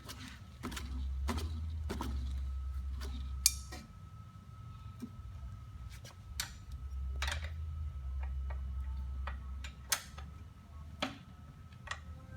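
Rear wheel and drive belt of an electric trike being spun to check belt tracking on the pulley: a low hum in two stretches of about three seconds each, with scattered clicks and ticks between them.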